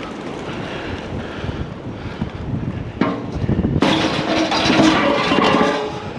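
Wind buffeting the microphone. About four seconds in, a louder grating noise with a faint metallic ring lasts about two seconds.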